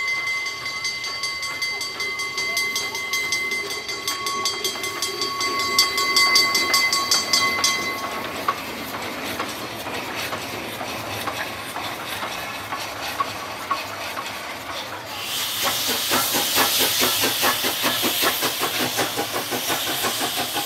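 Small DSB class F steam tank locomotive running past at low speed, with a dense run of ticks and clanks from its wheels and motion. A steady high tone sounds for about the first eight seconds, and from about fifteen seconds in a loud hiss of steam.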